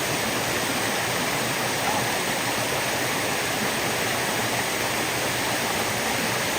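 Steady rush of water pouring down a waterfall, an even noise that does not change.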